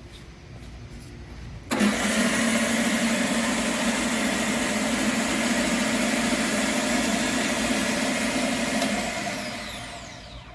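Delta/Rockwell 6-inch by 48-inch belt sander switched on about two seconds in, its motor and belt running steadily with a low hum under a loud hiss. Near the end it is switched off and winds down, its whine falling in pitch as it fades.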